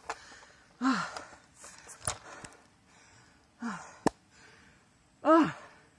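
A man breathing hard and out of breath, with voiced groaning exhales three times, about a second, three and a half and five seconds in, and noisy breaths between them: exhaustion after a steep uphill climb. Two sharp clicks come in between.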